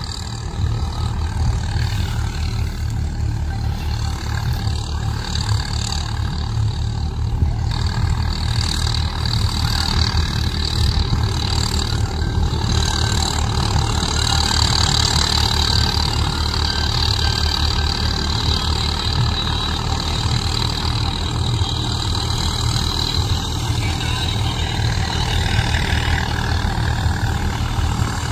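Swaraj 855 tractor's diesel engine running steadily under load while driving a straw reaper through wheat stubble, with a steady high whine from the reaper over the low, even engine note.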